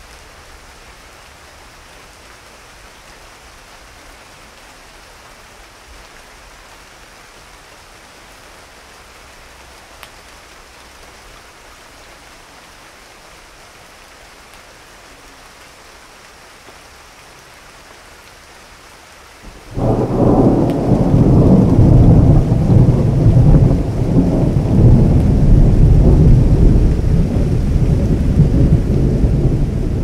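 Thunderstorm: a steady, quiet hiss of rain, then about two-thirds of the way through thunder breaks suddenly and rolls on as a long, loud, low rumble.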